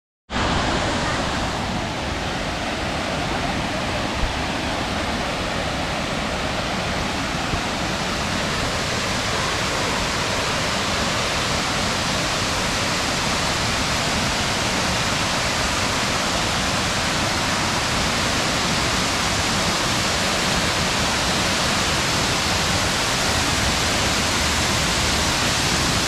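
Tall waterfall pouring into its plunge pool: a steady, unbroken rush of falling water.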